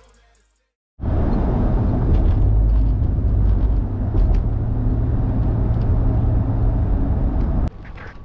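Steady, loud low rumble of a car on the move, engine and road noise. It starts abruptly about a second in and cuts off abruptly near the end.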